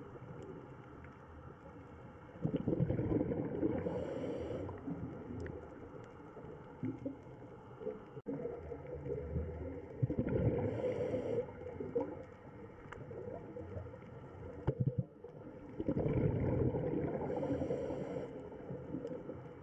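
Underwater ambience with a low bubbling rush that swells three times, about every seven seconds, each swell topped by a short hiss: a scuba diver breathing through a regulator, the exhaled bubbles gurgling.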